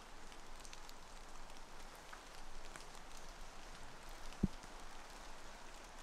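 Light rain falling in a forest: a steady hiss with scattered drips, and one dull thump about four and a half seconds in.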